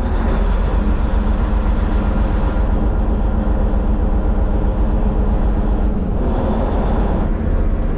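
Fishing boat's engine running steadily under way, with a constant rushing noise over it.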